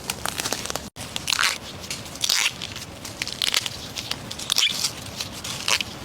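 Irregular crunching and crackling of dry plant litter and snapping stems, as someone moves and picks through bamboo undergrowth; the sound drops out abruptly about a second in and again past four seconds.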